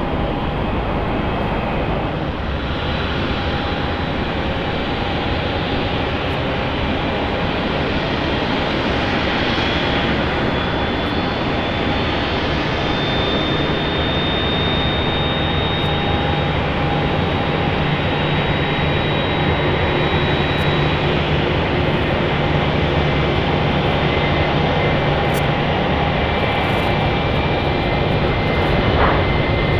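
Jet airliner engines running, a loud steady noise with a high whine held on top.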